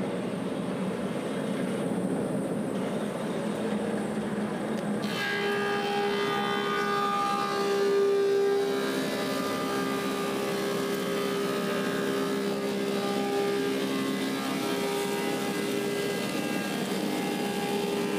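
Woodmaster 725 planer with a helical cutterhead running steadily. About five seconds in, a slab feeds through and the cut adds a steady whine of several pitches over the machine noise, which stops just before the end.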